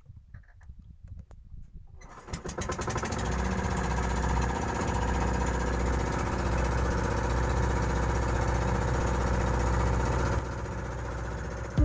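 Outrigger boat's inboard engine starting about two seconds in, then running steadily with an even, fast pulse; it drops slightly in level near the end.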